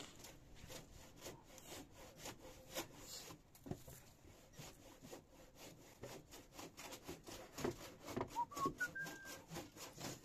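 Faint, irregular rasping strokes on timber, coming faster, about three a second, in the last few seconds. A short rising whistle sounds about eight seconds in.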